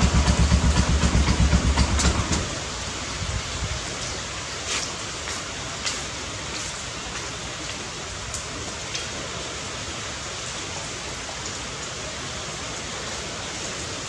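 Steady rain hiss with a few sharp drop ticks. A heavy, rapidly pulsing low rumble fades out over the first two and a half seconds.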